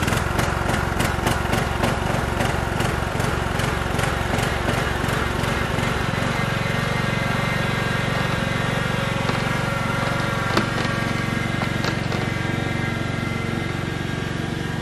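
Riding lawn mower engine running steadily just after starting, with a regular knock in the first few seconds before it settles to an even run.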